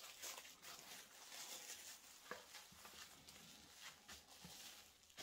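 Faint crinkling and rustling of plastic cling wrap being pulled and pressed around a ball of pizza dough, with small scattered crackles.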